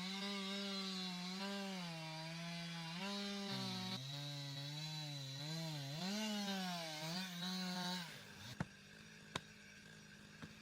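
Chainsaw engine running hard while cutting, its pitch sagging and recovering with the load, until it stops about eight seconds in; then two sharp knocks.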